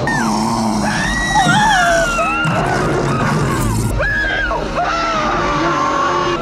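A woman screaming in terror: several long, high, wavering screams over dramatic orchestral film music.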